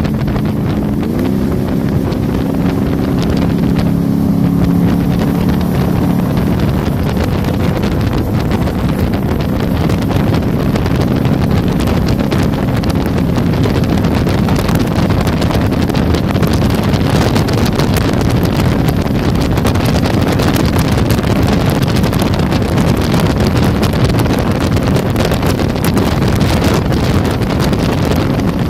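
Jet boat's engine running at speed, its note stepping up about a second in and standing out for the next few seconds before sinking under a steady rush. Heavy wind buffets the microphone in the open cockpit.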